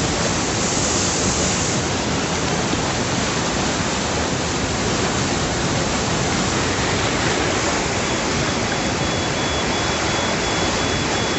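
Flash-flood torrent of muddy water rushing through a street, a loud, steady, churning rush of water.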